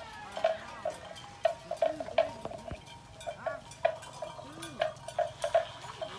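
A livestock bell clanking irregularly, about two strikes a second, with faint short animal calls underneath.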